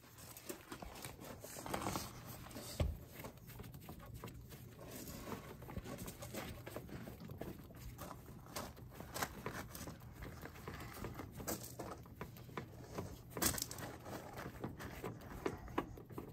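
Faint patter of used diesel engine oil dripping into a drain pan, with light clicks and scrapes of a hand unscrewing the spin-on oil filter.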